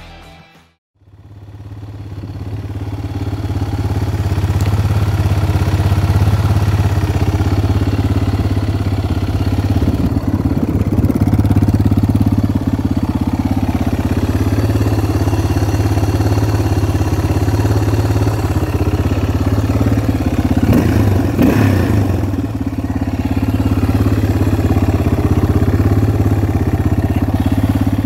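Yamaha TT600 single-cylinder four-stroke engine running steadily at idle, fading in over the first few seconds. It is shown after the fix for the common ticking/rattling at idle on these engines, with the rattle meant to be gone.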